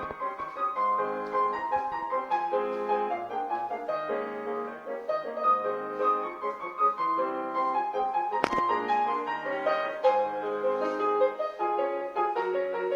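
Solo piano playing classical-style music, with one sharp click about eight and a half seconds in.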